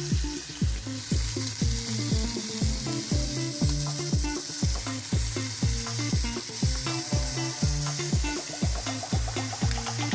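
Diced carrots, green beans and peas sizzling as they are scraped from a plate into hot oil and onions in a pan. Background music with a steady drum beat of about two thumps a second and a bass line plays over the frying.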